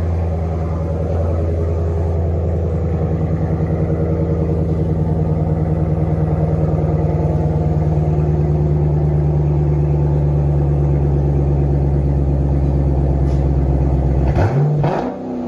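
Car engine running steadily and loudly through a newly fitted cat-back exhaust, with a deep, even drone. Near the end the sound changes abruptly and the pitch glides up and down briefly.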